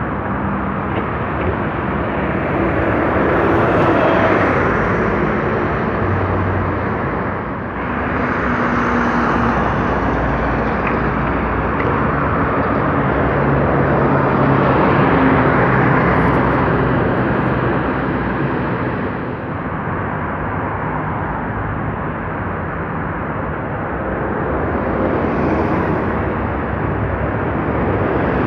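Steady road traffic on a multi-lane avenue, with the engine drone of city buses swelling several times as they pass close, an articulated bus among them.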